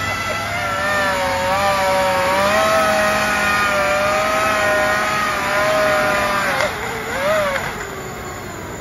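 QIDI 570 VTOL RC plane's three brushless motors and propellers whining in a hover, the pitch wavering as the throttle is worked. Near the end the pitch dips, rises briefly and then falls away as the plane sets down and the motors wind down.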